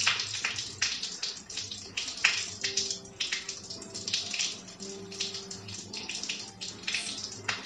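Rain falling, heard as a dense, irregular splashy patter.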